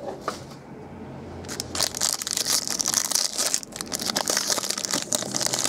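Foil wrapping on a pack of trading cards being crinkled and torn open by hand: a dense, crackling rustle that starts about a second and a half in and carries on busily.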